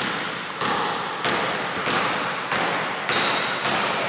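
A basketball is dribbled on a hardwood court in a large hall: a player bounces it at the free-throw line before shooting. There are about seven steady bounces roughly 0.6 s apart, each echoing.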